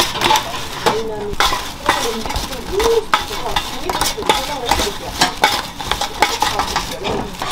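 Metal utensils stirring, scraping and clinking against pans and dishes in a busy food-stall kitchen, in irregular short knocks and clicks.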